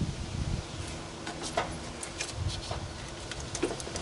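Jumper-cable clamps being handled and unclipped from a car battery's terminals: scattered light clicks and metallic ticks, over a faint steady hum.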